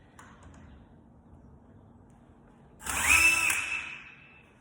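Power drill driver running briefly, spinning up to a steady whine and then stopping, as it backs a screw out of a door's strike plate.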